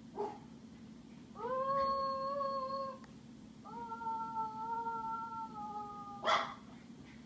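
A toddler's voice heard through a baby monitor's speaker, singing two long held notes, the second a little lower and sagging at its end, over a steady electrical hum. A sharp knock comes near the end.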